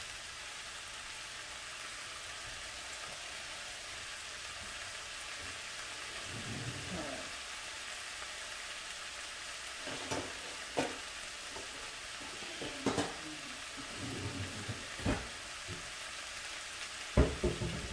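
Stir-fry vegetables and noodles sizzling in a frying pan on an electric stove, a steady hiss while the noodles are still defrosting in the heat. A few short knocks and clicks come in the second half.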